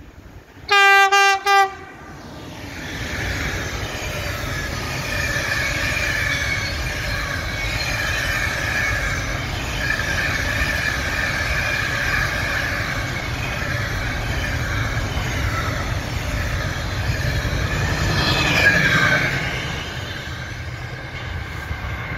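A loud horn blast from an EU43 electric locomotive about a second in, then the locomotive and its container wagons rolling past with a steady rumble and wheel noise. The noise is loudest just before the end, then fades as the train clears.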